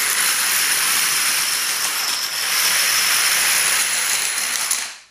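Hundreds of dominoes toppling row after row in a screen-link, a dense, steady clatter of small clicks that dies away shortly before the end.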